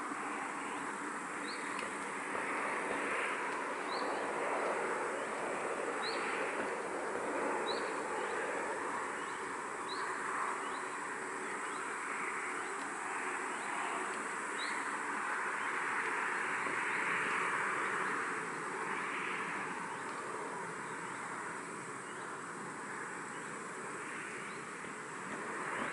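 A breeze rustling through foliage in gusts that swell and ease, while a bird repeats a short high rising chirp about every second and a half; the chirps fade out about halfway through.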